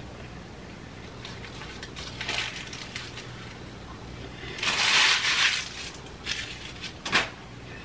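Close crunching of a crunchy taco being bitten and chewed: a short burst about two seconds in, a loud crunch lasting about a second around five seconds in, then two sharp crackles near the end.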